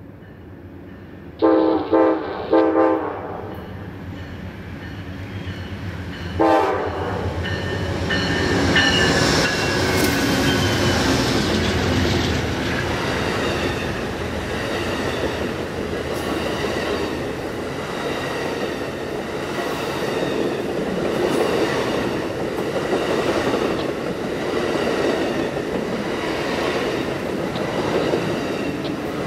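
Amtrak Auto Train's lead GE Genesis diesel locomotive sounds its horn in three short blasts in quick succession, then a fourth a few seconds later. The locomotives then pass with a loud rush of engine and wheel noise. A long line of Superliner bi-level passenger cars follows, rolling by with a steady rumble and a regular clickety-clack of wheels over the rail joints.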